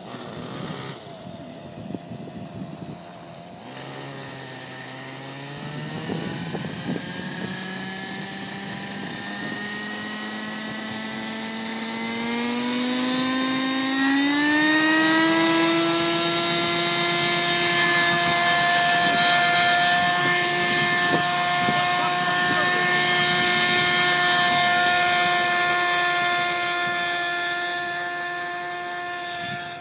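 Radio-controlled model helicopter spooling up. Its whine rises in pitch for about ten seconds, then holds steady and loud while it flies.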